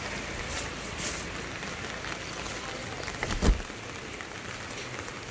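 Steady rain falling on wet ground and puddles, a constant hiss with faint drop ticks. A single low thump stands out about three and a half seconds in.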